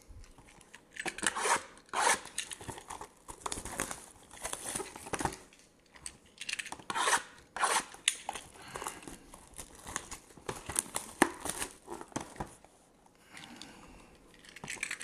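Plastic shrink-wrap being torn and crinkled off sealed trading-card hobby boxes, in irregular scratchy rustles, with cardboard boxes scraping as they are shuffled. It goes quieter shortly before the end.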